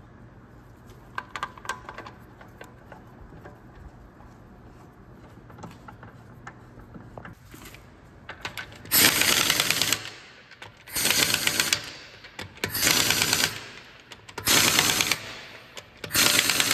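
Light knocks and clicks as the rear wheel goes onto the hub. Then an impact wrench rattles in five bursts of about a second each, running the five wheel bolts in snug.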